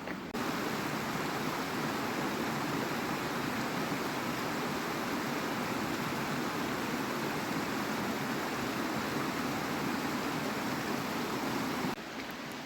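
River water rushing steadily. It cuts in suddenly just after the start and cuts out suddenly near the end.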